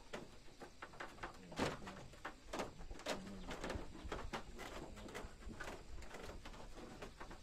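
Wooden plank door being handled and fitted into its wooden frame: scattered light knocks, taps and clatter of wood on wood, with a sharper knock about one and a half seconds in.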